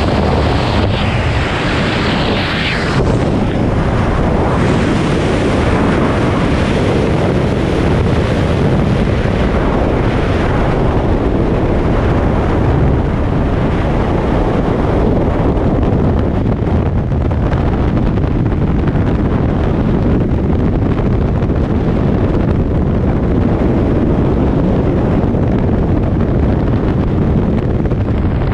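Loud, steady rush of freefall wind buffeting the camera's microphone during a tandem skydive. There is a brighter hiss in the first three seconds, at the exit from the aircraft door.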